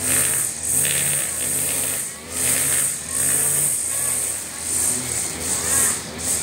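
Husqvarna 542RBS two-stroke backpack brush cutter running at cutting speed, its nylon trimmer line whirring through short lawn grass. The sound rises and falls in level every second or so.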